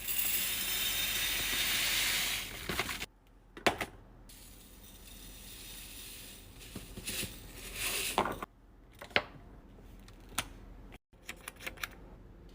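Panko breadcrumbs pouring into a storage container with a rushing hiss for about three seconds, followed by scattered clicks and taps as the container and its lid are handled.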